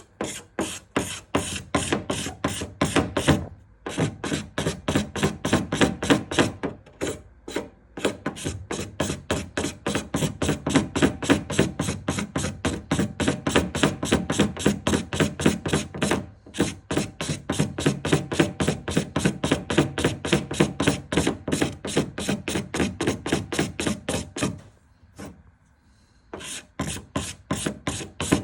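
Rapid back-and-forth hand sanding strokes on car paint, about five a second, leveling paint runs, in runs broken by brief pauses.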